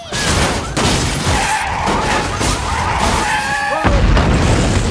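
Film car-chase sound effects: car tyres squealing and skidding over engine and traffic noise, with a heavy low rumble coming in suddenly near the end.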